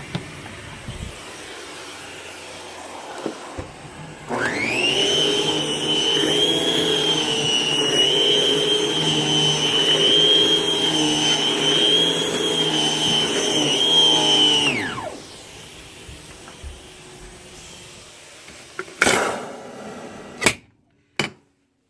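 A 1988 Vacu-Maid central vacuum system starts up about four seconds in with a quickly rising whine. It runs steadily with a high whine for about ten seconds, then winds down. A few sharp knocks follow near the end.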